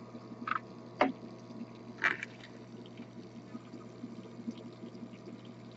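Isopropanol distillate dripping into a glass receiving flask during a simple distillation: a few sharp drops, the clearest about one and two seconds in, over a steady low hum.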